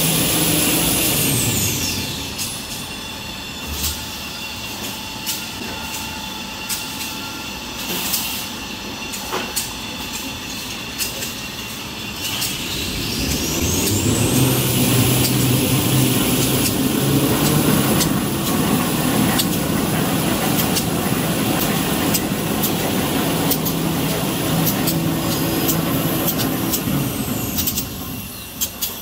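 Tissue paper rewinding and printing line running: a steady mechanical hum of rollers and drives with a high whine. The whine glides down about a second in, climbs back up around the middle, and glides down again near the end. The line sounds louder in the second half.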